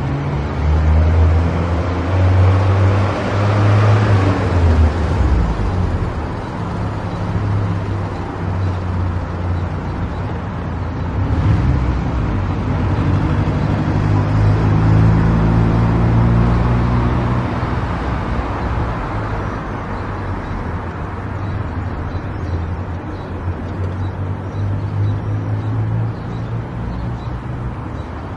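A car driving along a road: a low engine hum whose pitch steps up and down with speed, over steady tyre and road noise that swells about four seconds in.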